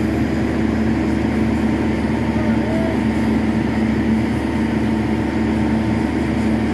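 Steady hum and drone of a mobile rail flash butt welding machine's power unit running, with no welding flash or crackle in it.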